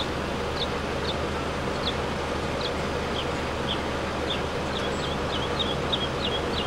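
A small bird chirping outdoors: short, high, slightly falling notes, one or two a second at first, then quicker near the end, over a steady hiss with a faint low hum.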